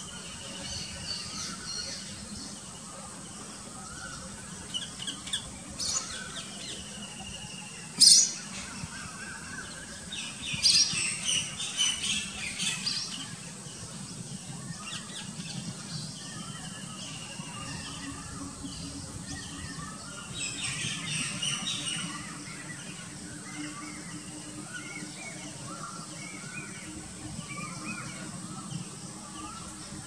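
Birds calling in the open: scattered short chirps throughout, with bursts of rapid, high, harsh calls about ten to thirteen seconds in and again around twenty-one seconds. A brief sharp sound about eight seconds in is the loudest moment.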